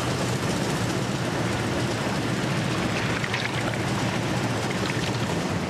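Motor-driven earthquake shaking rig running with a steady low hum, shaking a steel skip of wet sand to simulate an earthquake.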